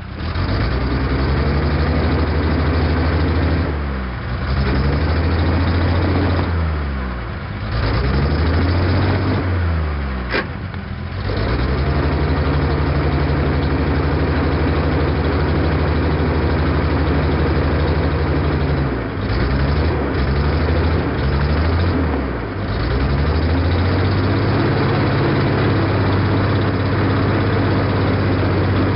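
Engine of a roughly 50-year-old truck running steadily while it drives a papercrete mixer's blade. Its speed sags and picks up again about five times as the drive is worked, with a brief sharp sound about ten seconds in.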